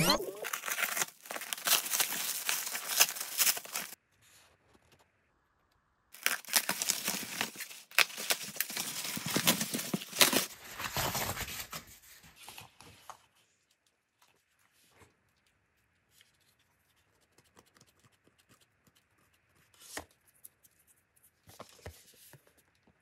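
Black plastic parcel wrapping and packing tape being torn and ripped open by hand, in two long stretches of loud crinkling and tearing. After that only quiet handling of the unwrapped axe on its cardboard backing, with a couple of light knocks near the end.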